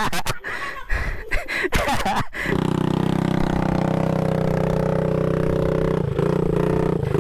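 Knocks and scrapes of handling, then after a sudden break about two seconds in, a small dirt-bike engine idling steadily, with a slight rise in engine note near the end.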